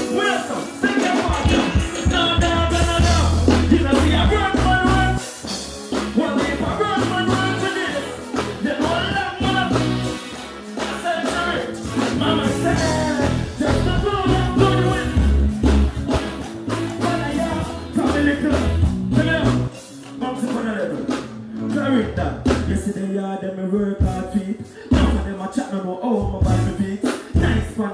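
Loud live music through a stage sound system, with a bass-heavy beat and a man singing into a microphone over it.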